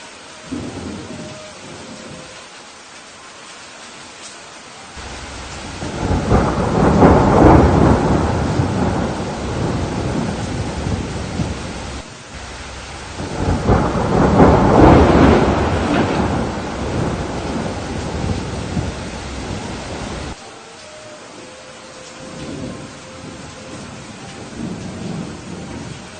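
Steady rain with two long rolls of thunder. The first swells in about five seconds in and the second about thirteen seconds in, each rumbling for several seconds. The low rumble cuts off suddenly about twenty seconds in, leaving the rain.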